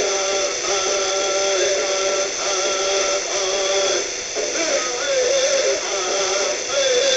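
Male singing from a long-distance 660 AM radio broadcast, playing through a radio's speaker. The singer holds long notes that waver in pitch.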